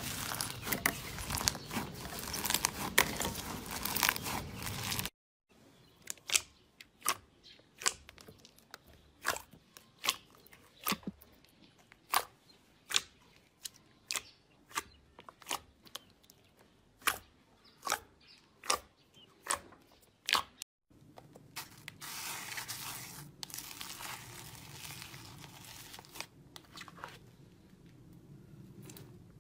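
Hands working slime: first a dense crunchy crackle as fluffy foam slime is kneaded, then after a cut a steady run of sharp pops, about one and a half a second, as thick glossy white slime is pressed and folded. Near the end a softer, continuous crinkling.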